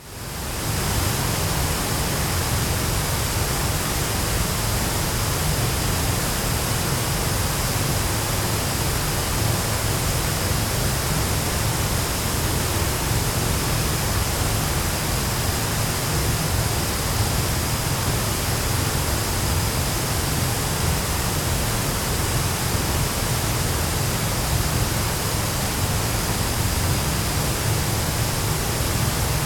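A large waterfall pouring: a steady, unbroken rush of falling water, heaviest in the low end, fading in over the first second.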